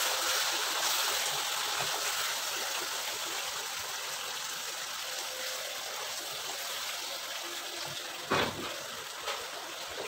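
Water just added to spiced quail in a hot wok sizzling and bubbling, a steady hiss that slowly dies down as a wooden spatula stirs it. Two short knocks of the spatula against the pan near the end.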